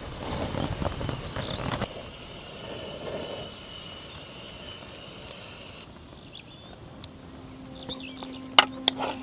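Outdoor forest ambience: wind rushing for the first two seconds, then quieter, with small birds chirping. Near the end come two sharp clicks, the loudest sounds, and a steady low hum sets in about seven seconds in.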